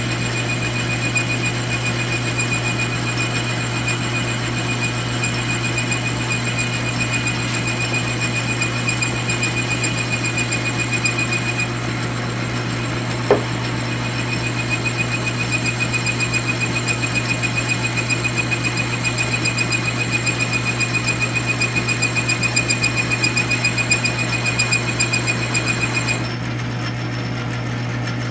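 South Bend 9-inch metal lathe running under power feed as a round-nose tool takes a smooth turning cut along a metal test bar held between centers. The motor hums steadily under a high steady whine, and the whine stops about two seconds before the end while the lathe keeps running.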